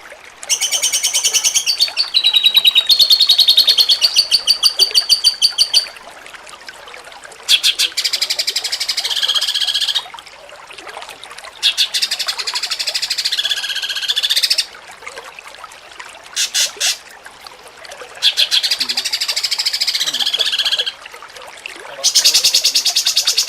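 A cucak cungkok sings its 'jengking munting' song: repeated phrases of fast, rattling high trills, each lasting one to five seconds, with short pauses between them.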